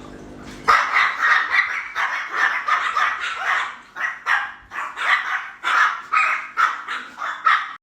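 A dog barking over and over in a fast, steady run of loud barks, about two to three a second, starting about a second in and stopping abruptly at the end.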